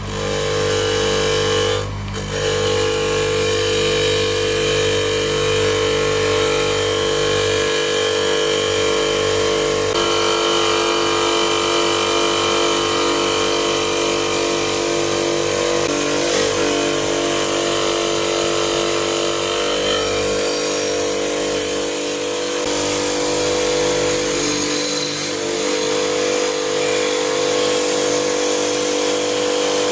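A small electric power tool running steadily, its motor holding an even pitch, with a brief dip in level about two seconds in.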